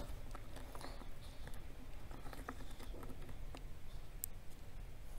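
Faint, scattered light clicks and taps of small staples and plastic being handled at the workbench, with one sharper click about four seconds in.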